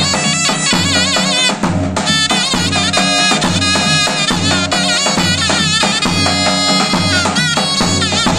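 A zurna (Turkish double-reed shawm) playing a wavering, ornamented folk melody over a large davul bass drum beaten in a steady rhythm.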